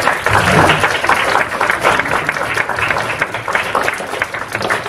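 Audience applauding, many hands clapping in a dense, steady patter that eases slightly near the end.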